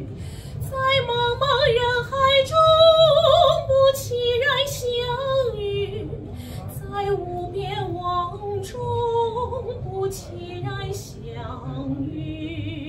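Female soprano singing a slow melodic line with vibrato, swelling loudest a few seconds in and then softening.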